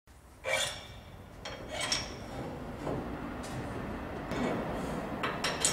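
Steel tooling of a hydraulic rim-straightening machine clinking and scraping as the tip holders and punches are handled and set in place, with sharp metallic clinks about half a second in, near two seconds in, and a louder cluster near the end, over a steady low workshop noise.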